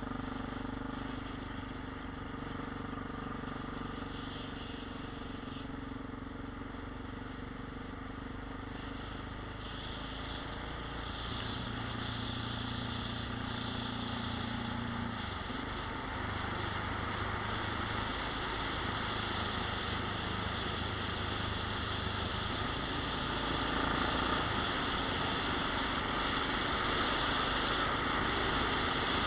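Engine of the vehicle carrying the camera running steadily at road speed, its pitch shifting in steps a few times, under a rushing of wind and road noise that grows louder near the end.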